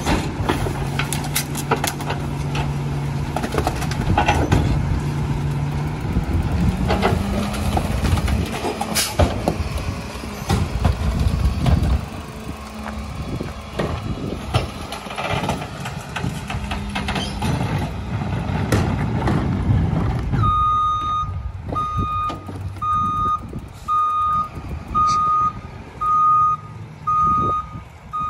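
Split-body rear-loader garbage truck's diesel engine running hard with clanks from the bin and hopper while the crew tips a recycling bin. The engine note steps up about six seconds in, as for the packer cycle, and from about two-thirds of the way through the truck's reversing alarm beeps about once a second.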